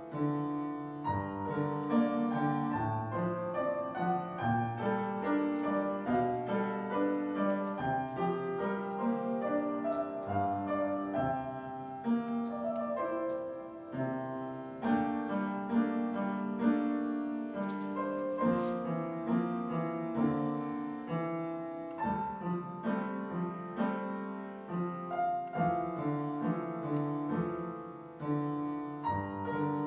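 Solo piano playing a slow prelude, with chords and a melody line sustaining into one another.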